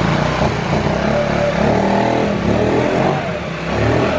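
Two-stroke moped engine revving up and down, its pitch rising and falling unevenly.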